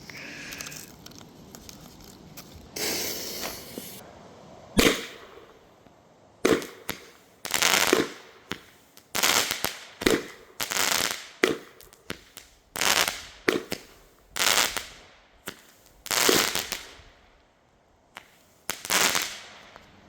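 A consumer firework's fuse hisses briefly, then the firework fires a series of about a dozen shots one after another, each a short whoosh ending in a sharp report, spaced roughly a second apart.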